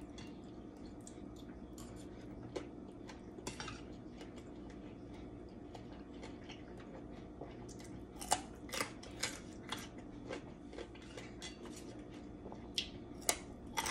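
Eating at a table: crisp crunching from chewing raw carrot sticks and spoon and fork clinks on a metal bowl, as scattered sharp clicks that grow more frequent about halfway through, over a steady hum.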